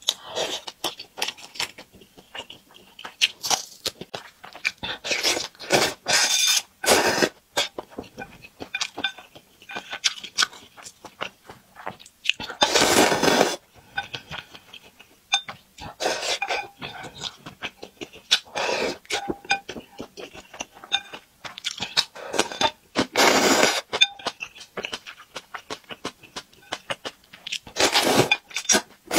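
Close-miked eating: wet chewing with many small clicks and smacks throughout, and a few loud slurps of noodles about a second long, the last one near the end.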